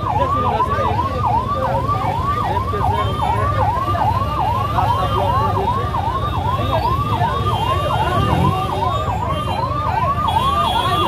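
An emergency vehicle's siren sweeping rapidly up and down, about three times a second, over the low rumble of a crowd.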